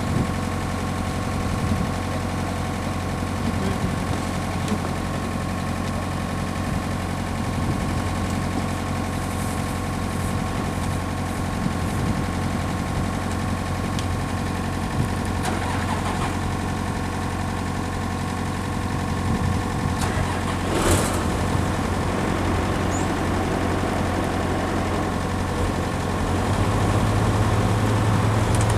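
Heavy engine idling steadily, with a single sharp knock about twenty seconds in. The engine note grows louder near the end.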